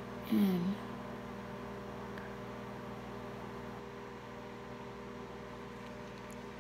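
Steady electrical hum made of several held tones, with a brief pitched vocal sound from a girl, like a short 'mm', about half a second in.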